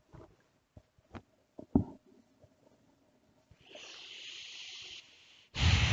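A few sharp clicks, then a person breathing out heavily: a long hissing breath, then a loud exasperated sigh blown into the microphone near the end.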